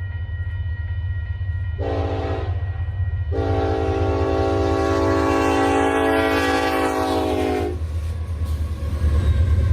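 Paragon 2 sound decoder in an HO-scale BLI SD40-2 model diesel locomotive, sounding its horn: a short blast about two seconds in, then a long blast of about four seconds. The low engine rumble runs steadily underneath.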